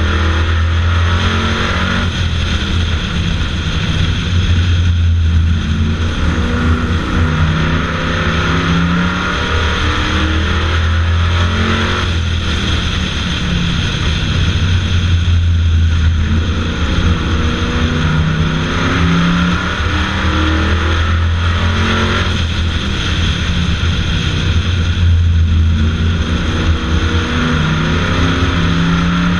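Bomber-class stock car's engine running at race pace, heard from the hood. Its sound swells and eases in a repeating cycle about every ten seconds as the car accelerates and lifts around the oval.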